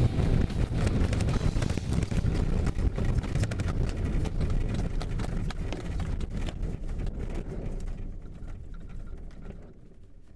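Glider cockpit rattling and rumbling as the sailplane rolls along the ground on its landing roll, dense irregular knocks over a low rumble. It dies down slowly and fades out near the end.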